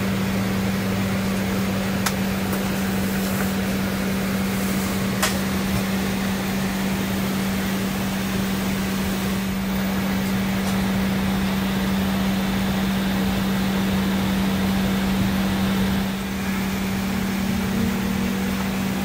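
Steady hum and rush of an Embraer E190 airliner's cabin air conditioning at the gate, with a constant low drone and a couple of faint clicks. A faint rising whine starts near the end.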